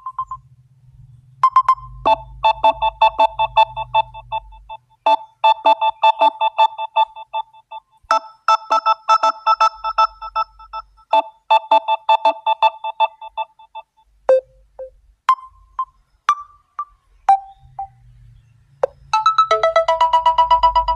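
Samsung Galaxy A14 5G ringtones playing: a melody of short, quick notes that thins out to a few scattered single notes. A different ringtone of fast repeating notes starts near the end.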